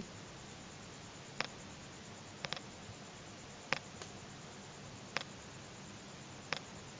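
Light, sharp clicks of beads knocking together as the thread is pulled tight through a beaded piece: about six scattered clicks, one doubled, over a faint steady hiss.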